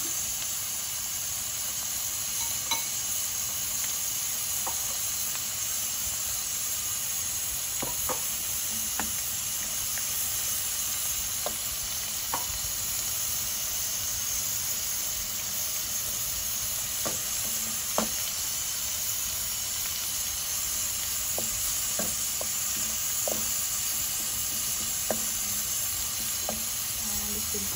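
Grated ginger, garlic and green chillies sizzling steadily in hot ghee, stirred with a wooden spatula, with occasional light clicks.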